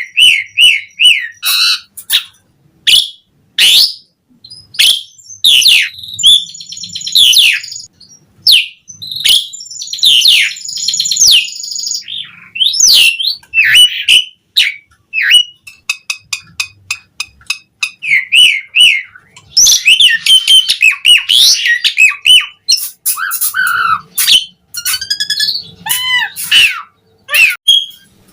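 Asian pied starling (jalak suren) singing a long, loud, varied song: rapid chatter, sharp clicks, whistled notes that glide up and down, and harsh squawks, packed with mimicked phrases.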